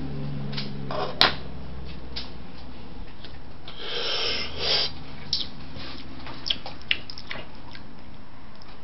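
A man smoking a joint: a sharp click about a second in as the lighter is set down on the wooden table, then about a second of breathy drawing and exhaling around four seconds in, followed by a few faint ticks, over a steady low hum.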